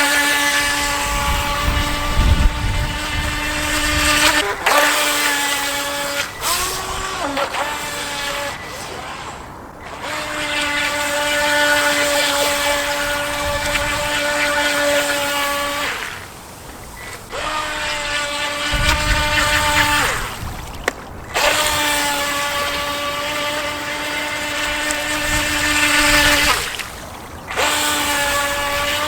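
Electric motor of a JJRC Latitude RC speedboat whining at a steady high pitch in runs of several seconds. It breaks off briefly between runs as the throttle is let off, with a short dip and rise in pitch about seven seconds in.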